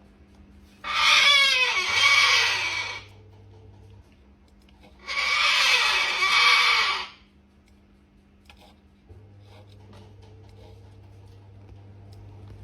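Pet cockatoo screaming: two loud, long screams of about two seconds each, the second starting about four seconds after the first ends.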